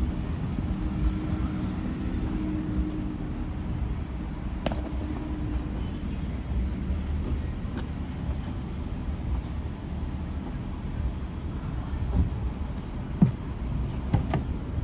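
Steady low rumble of a car driving, with a few faint clicks.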